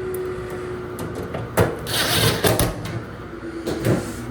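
A sharp knock, then about a second of scraping and rubbing, then another click, as parts of the dryer's cabinet are handled and fitted back together during reassembly.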